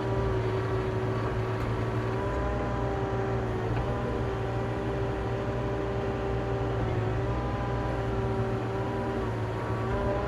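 Doosan DX35Z-7 mini excavator's diesel engine and hydraulics running steadily with a pitched whine, the tone shifting slightly a few times as the controls are worked.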